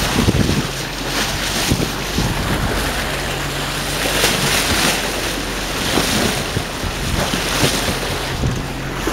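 Water rushing and splashing along a moving sailboat's hull, with wind buffeting the microphone and a few brief louder surges of spray. A low steady hum runs underneath from about three seconds in.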